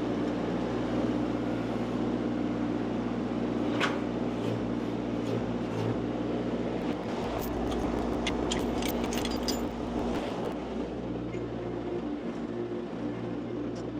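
Mini skid steer engine running steadily, with a few sharp metallic clanks about four seconds in and a cluster of them in the middle.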